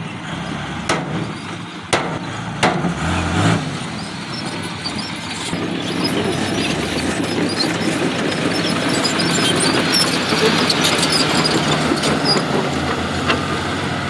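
Diesel dump truck engines and the trucks moving over a dirt fill site. A truck runs with its bed raised while unloading soil, and several sharp knocks come in the first few seconds. From about halfway, a louder, noisier rush swells as a loaded dump truck drives across the dirt.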